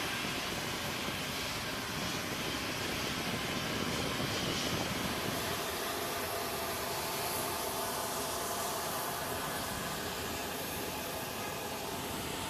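Steady roar of jet turbine noise with a faint high whine held through it, as heard around aircraft on an airfield flight line.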